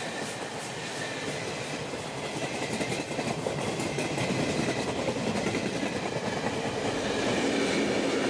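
Passenger train rolling past, its wheels clicking over the rail joints along with steady running noise; the noise grows a little louder toward the end.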